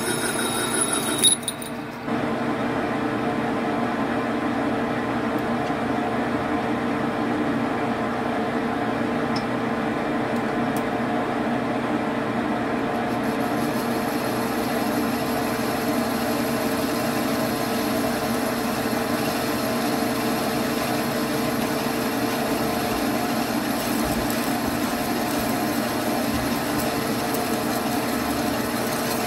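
Metal lathe running steadily, its cutting tool turning an aluminum workpiece and peeling off stringy chips, with a steady drive hum. A high-pitched ringing at the start cuts off abruptly with a sharp knock about a second in.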